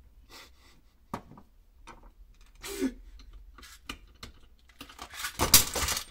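Tools and small parts being handled on a workbench: scattered clicks and rubbing, then a louder burst of clattering about five seconds in.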